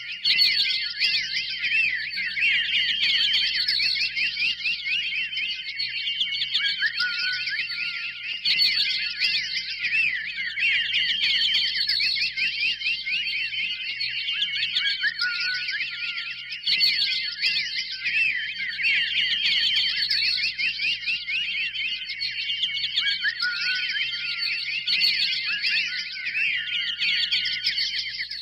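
A dense chorus of many birds chirping and twittering at once, a continuous overlapping flock chatter of short, quick high calls.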